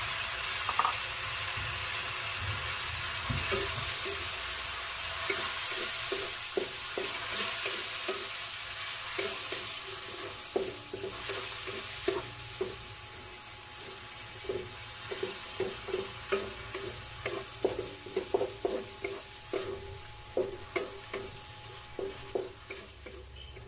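Food sizzling in a frying pan while a utensil stirs it, with repeated short scraping knocks against the pan that come faster in the second half as the sizzle fades.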